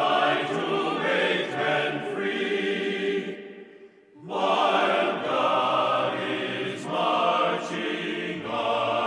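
Background music: a choir singing sustained chanted phrases, with a short pause about four seconds in.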